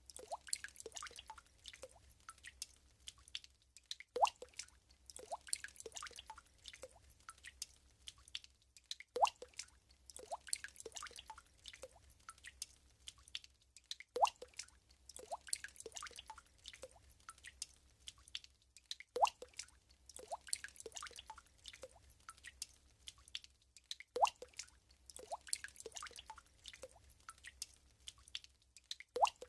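Water drops plopping into still water: a steady scatter of small drips, each a short rising plink, with a louder drop about every five seconds.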